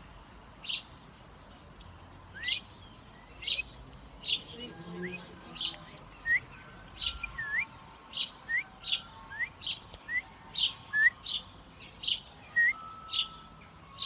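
Male house sparrow chirping over and over, single short cheeps about once a second at first, coming faster, about two a second, in the second half.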